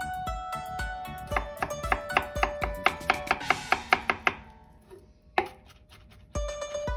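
Kitchen knife mincing fresh ginger on a wooden cutting board: a run of quick chops, about four a second, over plucked-string background music. The chopping stops about four seconds in and the music fades for a moment.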